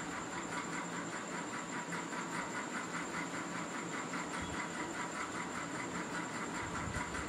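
Steady background hiss with a faint, fast, even pulsing and a thin high whine: room noise with no writing or speech.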